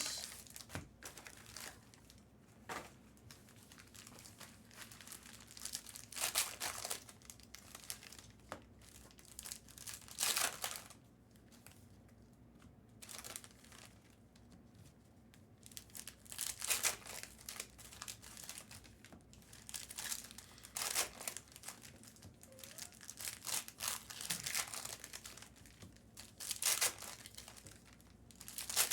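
Trading card pack wrappers crinkling and tearing in short, irregular bursts as packs are opened and handled.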